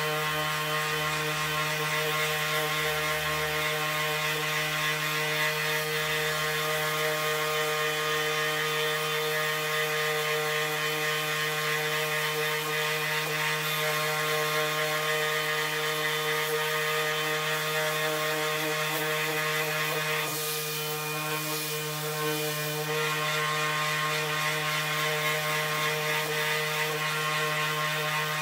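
Bosch GEX 18V-125 cordless random orbital sander running steadily, its spinning pad sanding a wooden board, giving a constant whine over the rasp of the abrasive. The level dips briefly about three quarters of the way through.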